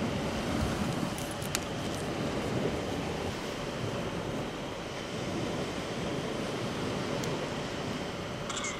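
Steady rushing of wind and surf on a beach, with a few faint clicks.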